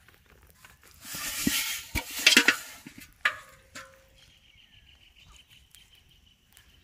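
About two seconds of rustling and splashing with a few sharp knocks, as a bamboo fishing rod and its line are handled among water hyacinth at the water's edge, loudest from about one to three seconds in. A faint thin steady high tone follows.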